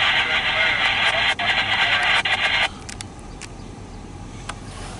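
Railroad scanner radio giving a loud burst of static hiss with no clear words, cutting off abruptly about halfway through when the transmission ends. A few faint clicks follow.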